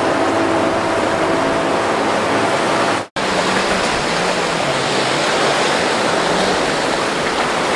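Mercury outboard motor running, a steady pitched hum over loud rushing water and wind noise. About three seconds in it cuts to the rougher rush of churning inlet water and wind, with a lower, wavering engine hum.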